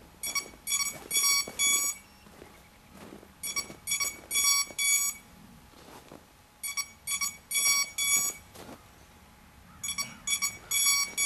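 Electronic beeping from the landed hexacopter: four quick clusters of short, high, identical beeps, one cluster about every three seconds.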